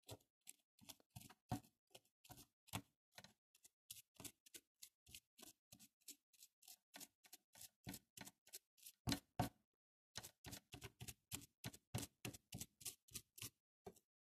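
Faint, irregular clicking, about three to four clicks a second with a short break about two-thirds of the way through, from the mechanism of a Łucznik 834 sewing machine (Singer licence).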